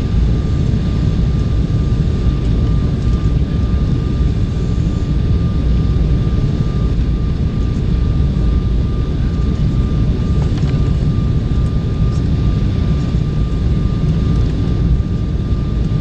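Cabin noise inside an Embraer 190 jetliner on approach: a steady low rumble of the General Electric CF34 turbofans and the airflow over the fuselage, with a thin steady high tone running through it.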